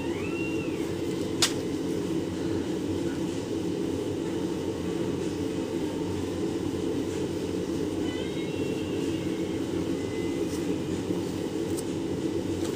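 Steady low hum of a fan or air-conditioning-type blower, with one sharp click about a second and a half in and a few faint ones near the end.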